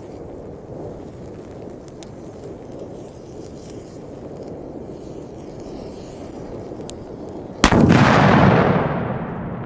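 A large firecracker, the Tuono Ultra 20, burns its fuse under a steady low hiss and then goes off in a single loud bang about three-quarters of the way through, its echo rolling away over the next two seconds.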